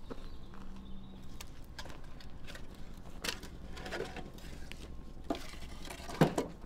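Split firewood logs knocking and scraping as they are handled and set onto a woodpile: a few short wooden clunks spread through, the loudest about six seconds in.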